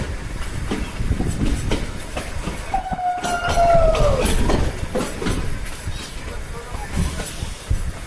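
Shimla toy train, a narrow-gauge train, running with rumbling and clickety-clack of wheels over the rail joints. About three seconds in, a high tone sounds for under two seconds and slides down in pitch as it ends.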